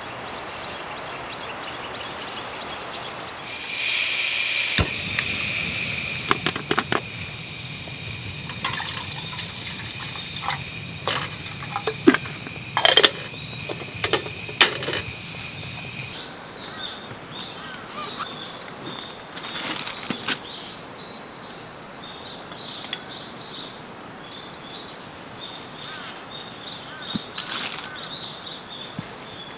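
Camp gas stove being lit: a hiss of gas, a sharp ignition click, then the burner running with a low steady rumble and a high hiss, with metal clinks of a kettle and its lid on the grate. Both stop abruptly about 16 seconds in, giving way to forest ambience with small bird chirps.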